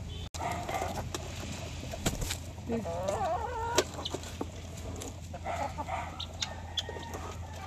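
Hens clucking and giving wavering calls while they feed, with scattered sharp taps among the calls.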